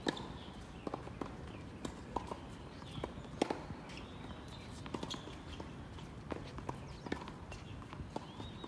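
Doubles rally in a racket sport: irregular sharp ball hits several times a second, with short high squeaks from shoes on the court floor.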